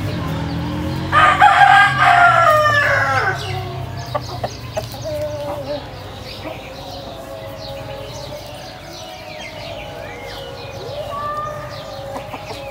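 A rooster crows once, starting about a second in and lasting around two seconds, its pitch falling at the end. Afterwards small birds chirp faintly and repeatedly.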